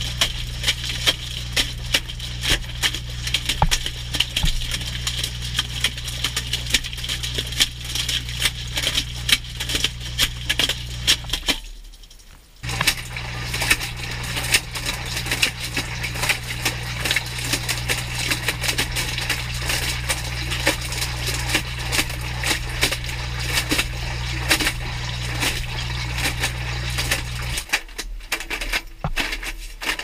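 Direct-drive washing machine tumbling a load, heard from inside the drum: a steady motor hum under rapid clattering knocks as the GoPro rolls with the wet laundry against the stainless drum and its lifters. Everything stops briefly about twelve seconds in as the drum pauses, and near the end the hum cuts out while the knocking goes on.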